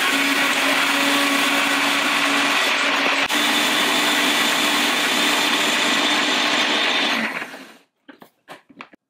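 Countertop blender running steadily, puréeing frozen blueberries with Greek yogurt, then switched off about seven seconds in and spinning down. A few faint clicks follow near the end.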